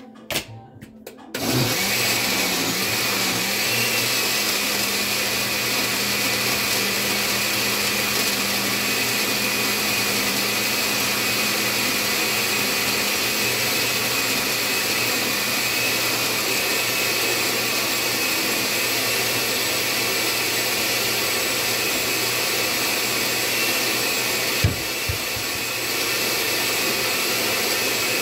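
A few clicks as the blender lid goes on, then a countertop blender starts about a second and a half in and runs steadily, blending fruit and orange juice into a smoothie. About 25 seconds in there is a knock and the motor drops a little in level for a moment before running on as before.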